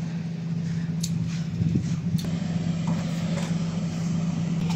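Steady low mechanical hum, one unchanging tone, with a few faint clicks over it.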